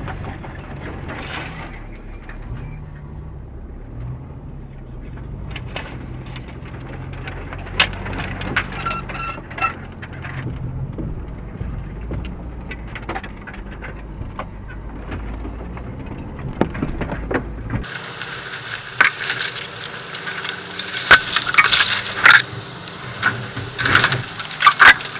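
Off-road 4x4 engine running at a low, steady crawl, heard from inside the cab, with scattered knocks and rattles over rough ground. About 18 seconds in the sound switches to a close view by a wheel, where loud, rapid sharp knocks, clatter and scraping take over and the engine drone drops out.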